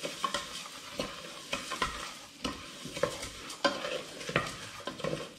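Raw basmati rice frying in a stainless steel pot, sizzling steadily while a wooden spoon stirs it, with irregular scrapes of the spoon against the pot.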